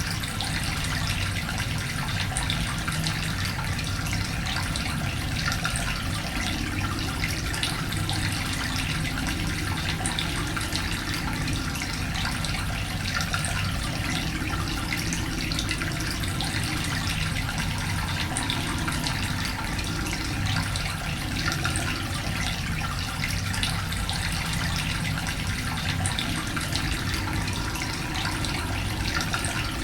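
Water running in a steady, unbroken flow.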